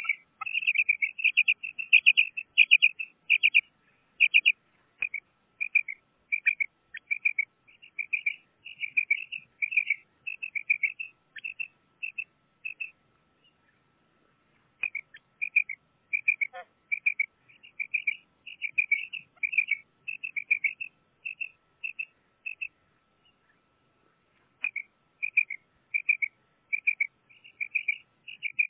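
Quail calling: runs of short, high chirping notes, about two a second. The calls break off twice for a couple of seconds.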